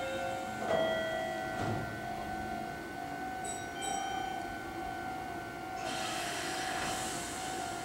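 A Meitetsu 3500 series electric train standing at the platform, its equipment giving a steady hum. There are two knocks about a second apart near the start, and a hiss comes in about six seconds in.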